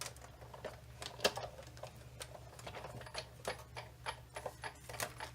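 Hand-cranked Big Shot die-cutting machine running a sandwich of cutting plates and a thin die through its rollers, giving a run of irregular light clicks as the die cuts a paper pennant.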